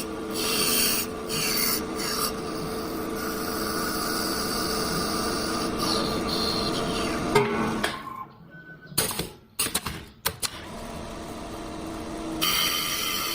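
Small automatic-feed wood lathe running: a steady machine hum under the rasp of the cutter shaving wood to turn balls. About two-thirds through, the sound drops away briefly amid a few sharp clicks, then the machine sound comes back.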